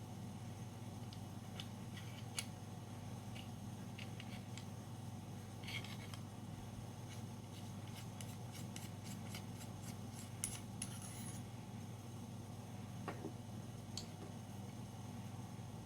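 Light metal clicks and clinks of Kimber G17 pistol parts being handled and worked during disassembly, scattered, with a quick run of clicks in the middle, over a steady low hum.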